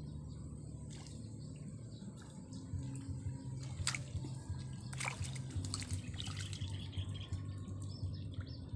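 Small fish splashing at the surface of a pond as it is hooked and lifted out on a line: a short sharp splash about four seconds in, then a quick cluster of splashes a second later, over a low steady rumble.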